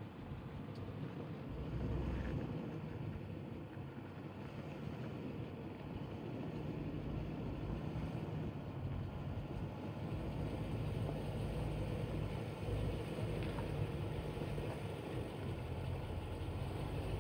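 2010 Land Rover LR4's V8 engine running at low revs as the truck crawls over rock.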